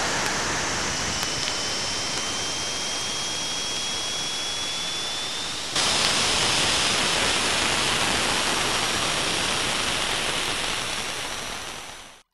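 Spacecraft radio and plasma wave data from Saturn, converted to sound: a steady rushing hiss with a faint whistling tone gliding slowly upward. About halfway through it jumps abruptly louder, then fades out at the end.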